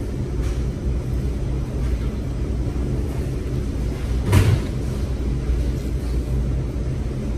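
Steady low rumble of restaurant dining-room background noise, with one brief thump about four seconds in.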